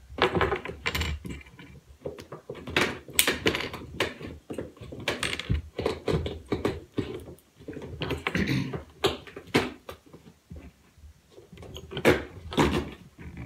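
Cardboard being torn and snapped open by hand: irregular crackles, rips and rustles as the perforated doors of an advent calendar box are broken away and the packaging inside is handled.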